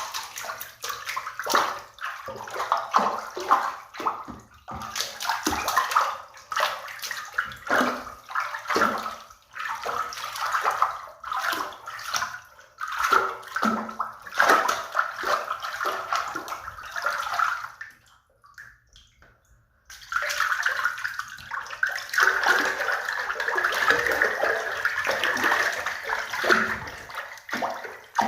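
Water in a bathtub sloshing and splashing in irregular bursts, breaking off for about two seconds past the midpoint, then resuming as a denser, more continuous splashing.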